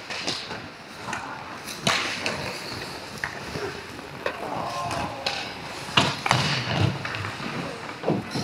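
Ice hockey play on the rink: skate blades scraping and hissing on the ice, with sharp knocks and clacks of sticks and puck, the loudest about two seconds and six seconds in.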